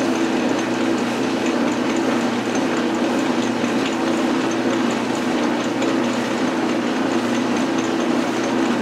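Metal lathe running steadily, with a constant motor-and-drive hum and a light, regular ticking several times a second, as a wobbling workpiece spins in the chuck while a bearing is pushed against it to true it up.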